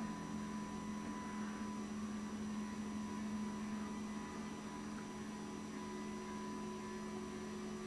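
Electric lift motor of a Premier Mounts cabinet TV lift running as the lift lowers, a faint steady hum.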